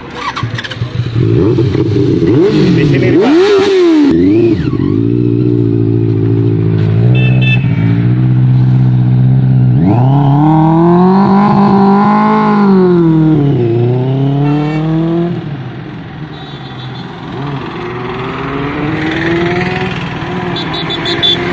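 Benelli TNT 600i's inline-four engine revving hard. Its pitch climbs and drops several times, with the biggest run about ten seconds in. About fifteen seconds in, the sound falls away, and fainter rising pulls follow as the bike accelerates off through the gears.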